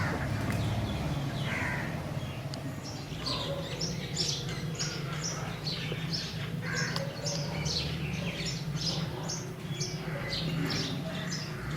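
Birds calling: a busy run of short, high, falling chirps from about three seconds in, with a few lower, harsher calls mixed in, over a steady low hum.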